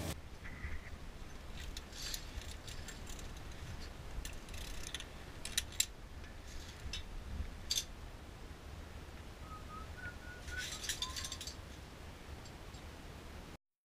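Scattered light metallic clinks and clicks of via ferrata gear (carabiners and lanyard) against the steel safety cable and iron rungs, at irregular intervals over a low steady rumble.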